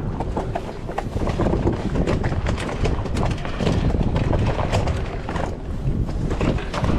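Fishing boat's engine running with wind on the microphone, a steady low noise with scattered light clicks and knocks through it.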